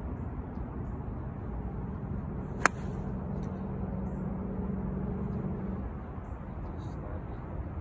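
A single sharp click of an 8-iron striking a golf ball about two and a half seconds in, over a steady low hum that fades out near the end.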